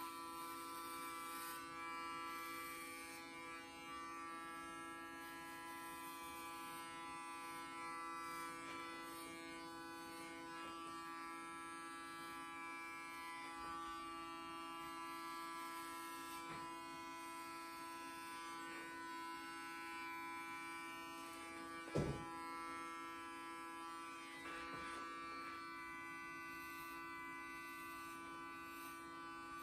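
Electric hair clippers buzzing steadily as they are run over a closely cropped scalp in a head shave. A single short knock sounds about three-quarters of the way through.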